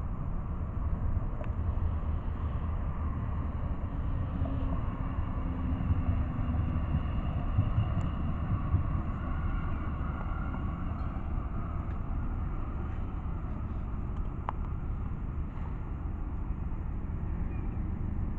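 Melbourne A-class tram and road traffic going by: a steady low rumble.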